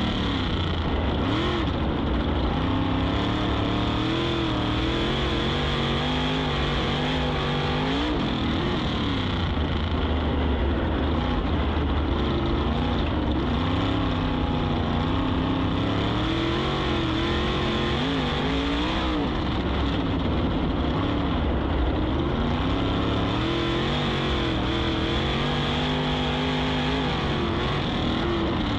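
On-board sound of a 410 sprint car's V8 engine at racing speed on dirt, its pitch dipping and climbing again every few seconds as it goes from corner to straight.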